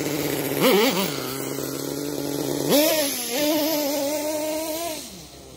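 Kyosho Mad Force's nitro glow engine: a quick rev about half a second in, dropping back to a steady idle, then held at higher revs for about two seconds as the truck drives off, fading near the end. It is running rough, sputtering a bit on throttle, which the owner puts down to too much oil in the fuel.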